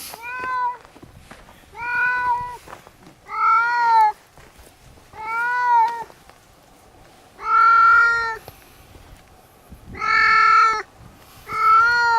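A large tomcat meowing repeatedly: seven long, drawn-out meows, one every second and a half to two seconds, each held at a steady pitch with a slight rise and fall.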